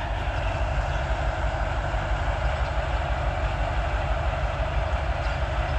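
Steady low rumble of heavy diesel machinery running at a construction site, with a constant mid-range drone over it and no distinct starts or stops.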